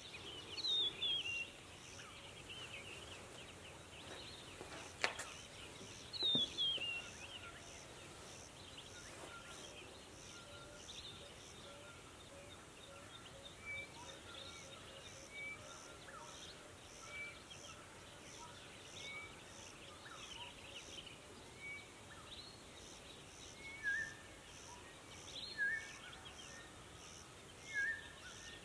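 Several wild birds calling over a quiet rural background, with falling trilled calls near the start and about six seconds in, and short repeated notes that grow louder near the end. A faint, even high pulsing runs underneath, and there is a single sharp click about five seconds in.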